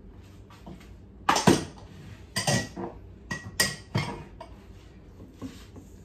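A stainless steel mixing bowl clattering, struck about five times as a second bowl and a spatula are knocked against it to empty in the dry flour mixture. Some knocks carry a brief metallic ring, and the first is the loudest. Softer scrapes and taps follow as the bowl is set aside.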